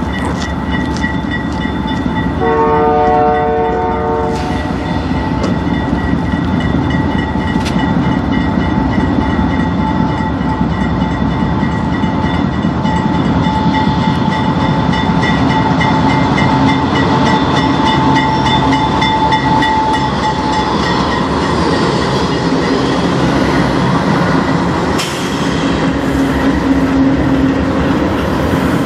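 Diesel freight locomotives of a CN intermodal train approaching and passing close by, one short horn blast a few seconds in, then double-stack container well cars rumbling and clacking past over the rail joints, with a thin high ringing underneath.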